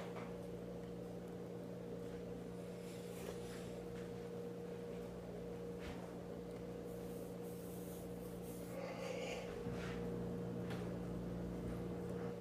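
A steady low hum, with a few faint soft rustles and breaths over it.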